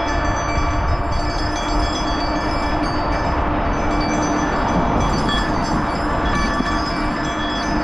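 Steady wind buffeting and road rumble on a helmet or handlebar camera during a bicycle ride, with several thin whining tones that come and go.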